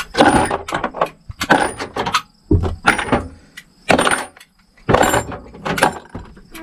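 Handfuls of loose metal screws clattering into the plastic compartments of a tool organizer as they are sorted by hand, in short rattles about once a second.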